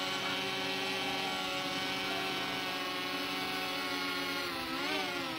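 Cfly Faith 2 quadcopter's motors and propellers whining steadily in flight, their pitch dipping and rising again near the end as the throttle changes.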